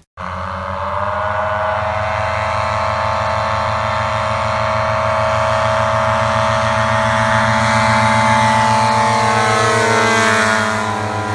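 The Lightning Bug ultralight's twin small gas engines, made for large-scale RC model airplanes, running at high power as the aircraft comes across the grass field. The sound grows slowly louder, and its pitch falls near the end as the aircraft passes close by.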